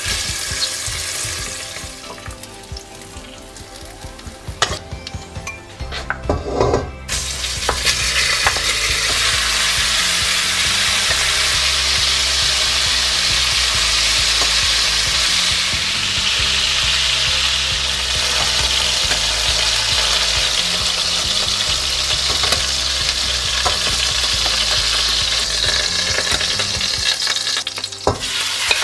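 Diced bacon frying in a stainless steel pot, with a wooden spoon scraping through it. About a quarter of the way in, a much louder steady sizzle takes over as chunks of beef sear over high heat and are turned with metal tongs.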